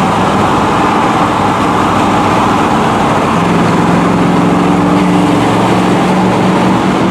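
A motor vehicle's engine running close by amid a loud, steady rush of noise. A low, steady hum comes in about three seconds in and holds.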